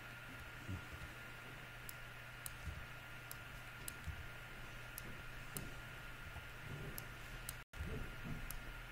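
Sparse, irregular clicks of a computer mouse and keyboard as text is selected and deleted, over a steady faint electrical hum.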